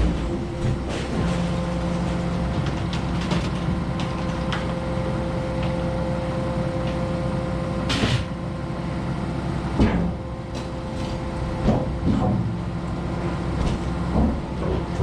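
An engine runs steadily throughout, with a few sharp metallic knocks and clunks over it, the loudest about halfway through.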